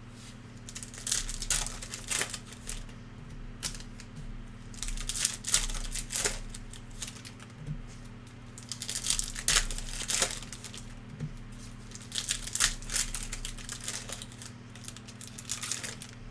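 Plastic trading-card pack wrappers being crinkled and torn open, in several short bursts of rustling over a faint steady hum.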